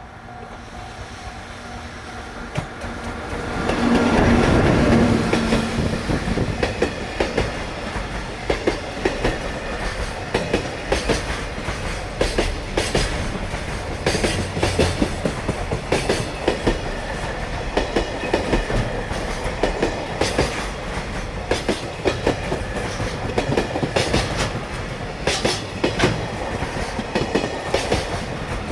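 JR Freight EF66 electric locomotive hauling a long train of Koki container wagons past at speed. The sound builds to a loud peak about four seconds in as the locomotive goes by. Then the wagon wheels beat out a steady clickety-clack over the rail joints, a run of sharp grouped clicks that keeps on to the end.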